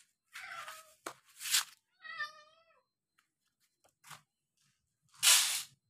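A domestic cat meows, one wavering cry about two seconds in, among short scuffing noises; the loudest sound is a half-second rush of noise near the end.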